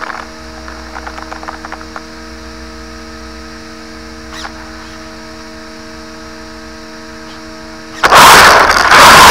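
A steady electrical hum of several fixed tones, with a few faint ticks in the first couple of seconds and one more about four seconds in. About eight seconds in, a loud rushing noise starts abruptly.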